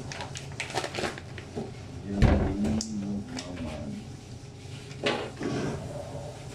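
Knocks and clatter of work at a butcher's bandsaw station, with one heavy thud about two seconds in, over a steady low hum.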